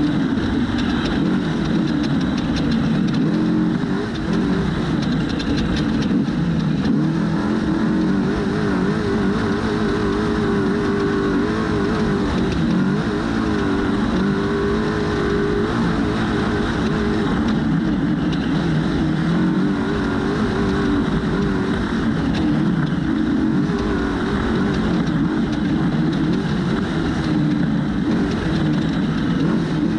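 Trophy truck's engine running hard at racing speed. Its pitch keeps rising and falling as the throttle is worked, over a steady rushing noise.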